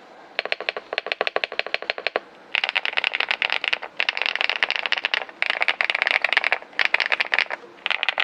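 Fast typing on a Leobog Hi75C mechanical keyboard with MMD Princess V3 linear switches: a rapid stream of keystroke clacks, about ten a second, in runs of one to two seconds broken by brief pauses.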